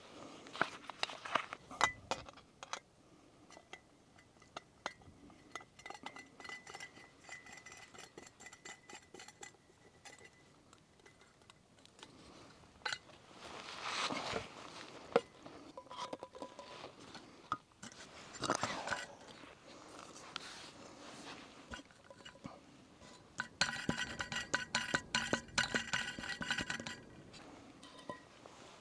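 Camping cookware being handled: metal pots, lids and utensils clinking and knocking, with a longer metallic rattle near the end.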